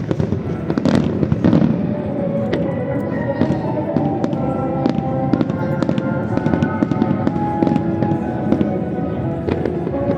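Fireworks display with aerial shells bursting and crackling in quick succession, many sharp bangs throughout. Music plays at the same time.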